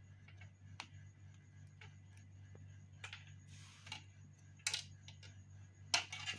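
Irregular sharp clicks and a short scrape of small parts being handled during a washing machine repair, over a steady low hum. The loudest clicks come near the end.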